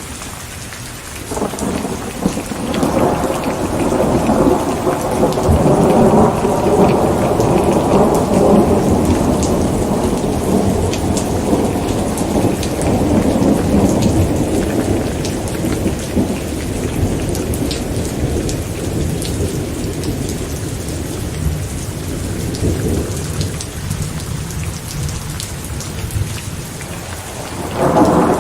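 Steady rain pattering, with a long roll of thunder that builds about a second and a half in and slowly dies away over some twenty seconds; another thunder roll begins near the end.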